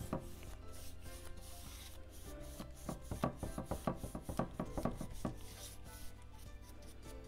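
Paintbrush scrubbing back and forth over rough, heavily distressed wood, laying on a thin, watery paint wash. A quick run of short strokes, about five a second, comes from about two and a half seconds in to just past five seconds.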